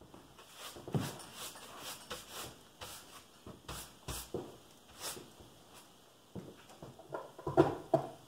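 A hand brushing across a wooden workbench top: a series of short swishing strokes, about two a second, then a brief burst of louder knocks near the end.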